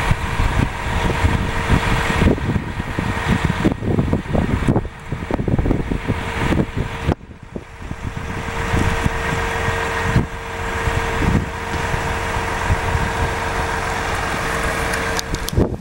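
A truck-mounted concrete pump running steadily, with a constant whine over its engine noise, while wind buffets the microphone in low gusts.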